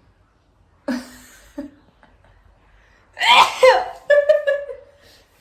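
A woman sneezing, set off by a nasal swab for a Covid test: a short sharp burst about a second in, then a loud voiced sneeze about three seconds in, followed by a few short voiced sounds.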